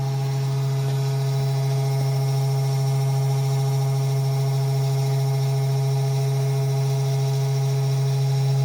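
Small desktop CNC router engraving with a V-groove bit, its 12-volt DC spindle motor running with a steady hum and several fainter steady higher tones above it.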